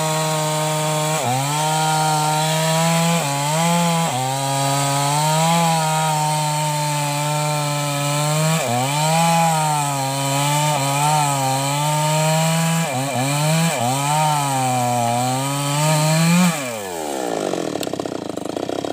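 New West 588X two-stroke chainsaw cutting through a large sengon (albizia) log at full throttle. Its engine pitch dips and recovers again and again as the chain bites and clears. About three-quarters of the way through, the throttle is released and the revs fall away.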